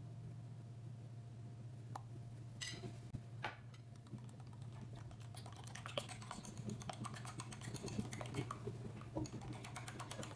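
Beaten eggs whisked briskly in a ceramic bowl with a small spiral whisk, a rapid run of light clicks and scrapes of wire on the bowl starting about halfway through. Before that, cornstarch water is poured into the eggs with a brief splash. A low steady hum runs underneath.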